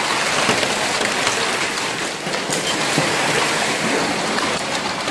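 Heavy rain mixed with hail pelting down: a dense, steady hiss dotted with many small ticks of impacts.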